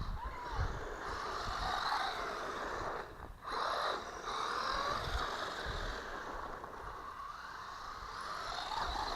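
Small RC car's electric motor and gearing whining as it is driven, the pitch rising and falling with the throttle, and cutting out briefly about three seconds in.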